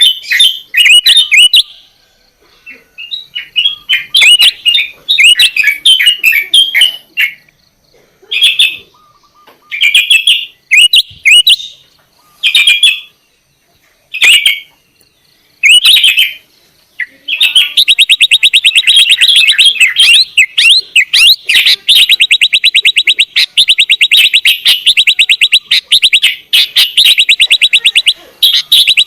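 Sooty-headed bulbul (kutilang) singing loudly: short bursts of chattering, whistled notes with pauses between them. About halfway through, this turns into a long, fast, evenly repeated run of notes that goes on without a break.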